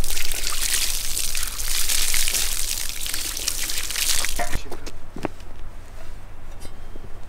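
Water pouring from a watering can, a steady splashing rush that stops about four and a half seconds in, followed by a few faint knocks.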